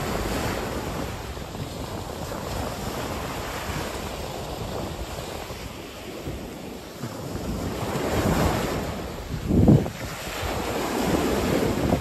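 Wind buffeting the phone's microphone: a steady, low rush that swells in gusts, loudest about eight to ten seconds in.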